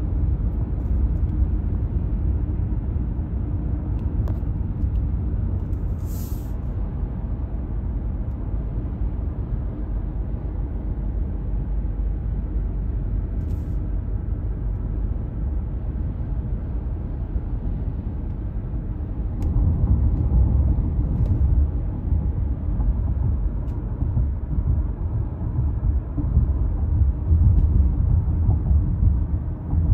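Steady low rumble of a car on the move, heard from inside the cabin: road and engine noise, which gets louder about two-thirds of the way through.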